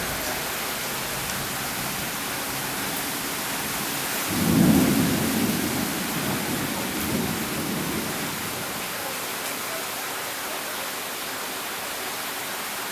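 Heavy rain pouring steadily, with a roll of thunder swelling about four seconds in and fading away over the next few seconds.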